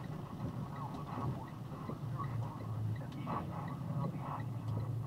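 Box truck heard from inside the cab while driving slowly on a wet road: a steady low engine hum with scattered light ticks.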